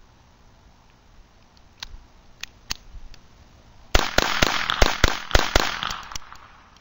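Beretta 21A .22 LR pistol fired in a fast string of about seven shots in roughly a second and a half, starting about four seconds in, each crack trailing a short echo. The Remington Thunderbolt rounds cycle through without a jam.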